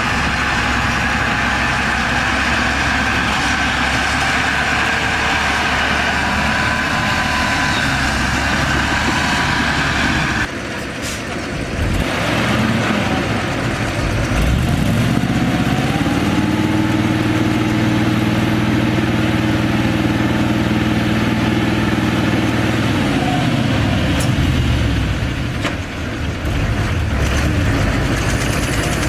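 Heavy diesel earthmoving machinery at work. For the first third the engine runs under load with a steady high whine over it. Then the sound changes abruptly, and the diesel revs up, holds high for several seconds, drops back, and revs up again near the end.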